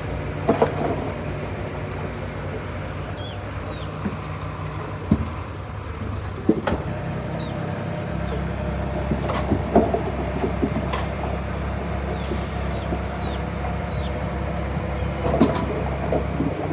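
Diesel engine of heavy earthmoving machinery running steadily under changing load, its note dropping deeper and stronger about halfway through, with scattered metallic clanks and knocks.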